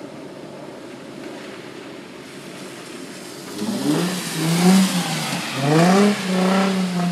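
Nissan 350Z's 3.5-litre V6 revving hard as the car slides sideways on wet asphalt, with the tyres hissing through standing water. After about three and a half seconds of steady low hiss, the engine note climbs, dips, climbs again and holds high near the end.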